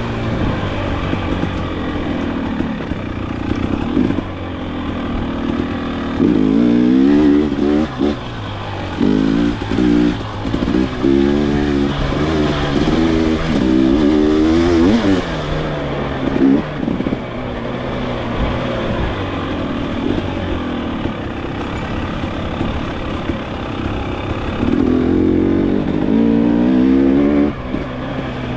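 2023 Husqvarna TX 300 two-stroke dirt bike engine working up and down on the throttle while riding, its pitch climbing and falling over and over. The hardest bursts of revving come through the middle and again near the end.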